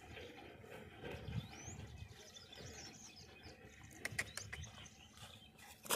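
Small birds chirping, a few short high calls rising in pitch, over a low rumble. Several sharp clicks come about four seconds in, and a louder one near the end.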